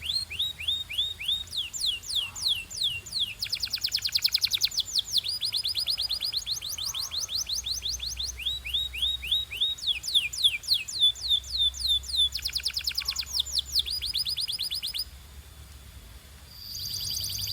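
Domestic canary singing: fast trills of repeated down-slurred notes, the phrase changing in speed and pitch every second or two. The song drops away briefly near the end, then starts again with a held high whistle over further trills.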